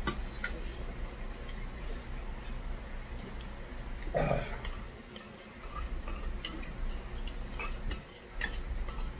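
A metal spoon clinks and scrapes against stainless steel bowls as rice is scooped out of a rice bowl and tipped into a soup bowl, in scattered sharp clinks. A brief voice sound comes about four seconds in.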